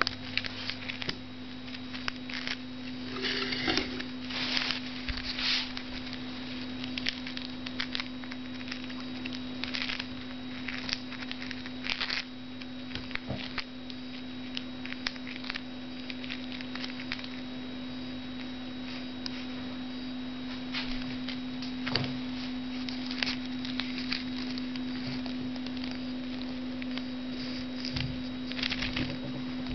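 A steady low hum with scattered short rustles and clicks as a Bengal cat shifts about on loose papers and licks at its front paw. The clicks cluster in a few spells and are loudest about three to six seconds in.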